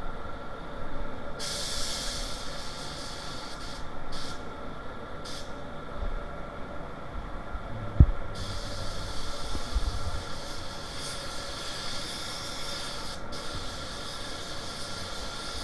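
Siphon-feed air spray gun spraying automotive paint in hissing bursts: one long burst about a second and a half in, two short blips around four and five seconds, then steady spraying from about eight seconds on. A steady hum runs underneath, and there is a single knock at about eight seconds.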